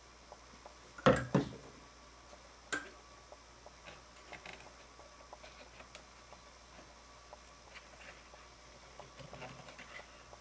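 Hand work at a wooden wing-rib jig on a workbench: two sharp knocks about a second in and another shortly after, then faint scattered taps and clicks as small wooden strips are handled and pressed into place.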